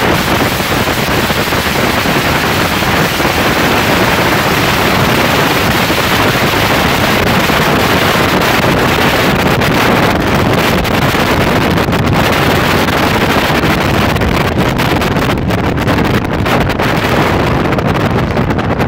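Loud, steady wind rushing over the microphone, mixed with road and trailer noise, while riding in the open on a trailer towed behind a diesel pickup with twin exhaust stacks.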